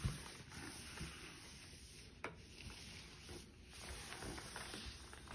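Steam iron sliding over a fabric backdrop: a faint rubbing swish of the soleplate on cloth, with a few soft knocks and one light click about two seconds in.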